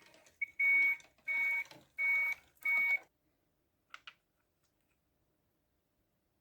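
Electronic alarm beeping: four even beeps, about one every 0.7 s, then stopping; two faint clicks follow.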